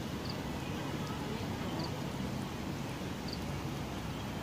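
Kittens chewing and smacking on chunks of wet cat food, over a steady outdoor background noise. Faint short high chirps come about every second and a half.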